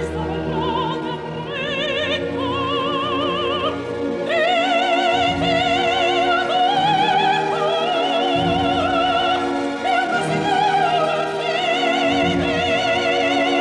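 Operatic soprano singing with a wide vibrato over a full orchestra, growing louder about four seconds in and holding long high notes.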